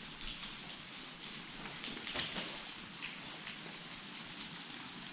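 Footsteps crunching irregularly on gravel track ballast, over a steady hiss.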